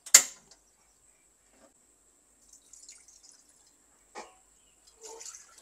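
A sharp click just after the start, then scattered faint taps and drip-like sounds, with another click about four seconds in.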